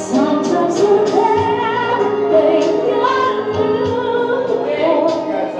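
A three-piece live band playing a song with a woman singing.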